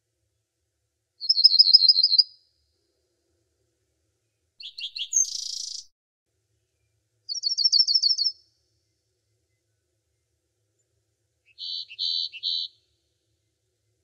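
Songbird calls in four short bursts a few seconds apart: a rapid high trill, a few notes ending in a harsh buzzy note, another rapid trill, then three quick chirps. Silence between the bursts.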